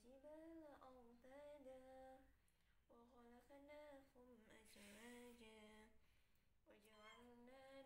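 A domestic cat in labour giving several long, drawn-out yowls, faint, their pitch wavering up and down.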